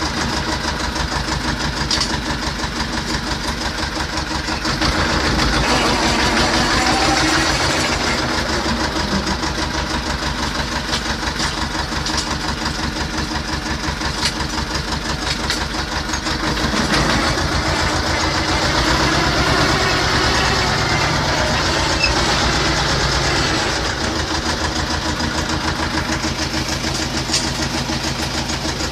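T-25 tractor's two-cylinder air-cooled diesel engine running with a steady, dense firing beat, growing louder for a few seconds twice.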